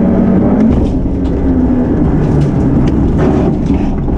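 Ford Ka RC5 rally car's engine heard from inside the cockpit at speed on a gravel stage. Its pitch drops about half a second in as the driver comes off the throttle, and gravel clatters against the underside of the car.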